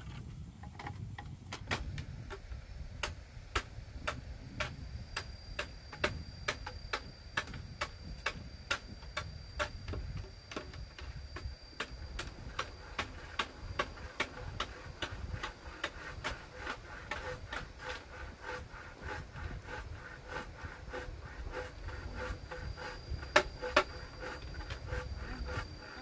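Steady, even tapping on bamboo, about two knocks a second, with two louder knocks near the end. A thin high steady whine comes and goes behind it.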